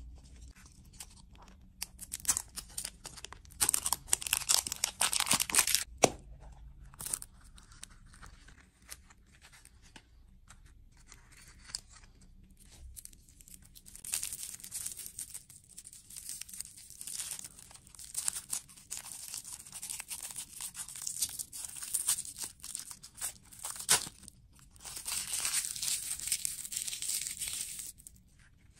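Crinkly plastic candy wrapping being torn and unwrapped by hand as a lollipop is opened. The crinkling comes in bursts: a loud spell a few seconds in, a quieter stretch, then nearly continuous crinkling through the second half, with a couple of sharp clicks.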